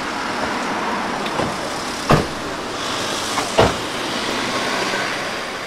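Steady street traffic noise, with two sharp thumps about a second and a half apart, a couple of seconds in.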